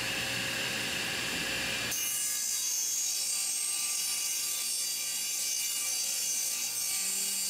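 Table saw ripping a 2x4 lengthwise, a continuous cutting sound. About two seconds in it turns to a brighter, hissier tone.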